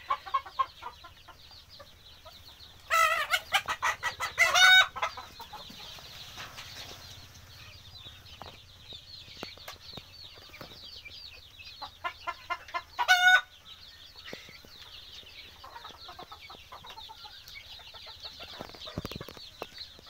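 A large flock of desi chickens clucking and chattering non-stop, with loud crowing about three seconds in and again around thirteen seconds.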